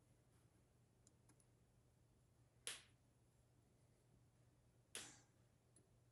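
Near silence with a faint low hum, broken by two short sharp clicks about two seconds apart, each dying away quickly, and a few fainter ticks before them.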